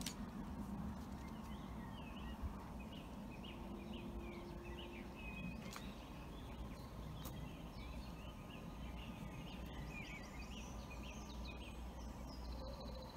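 Small birds chirping and singing in quick, short notes over a faint, steady low rumble.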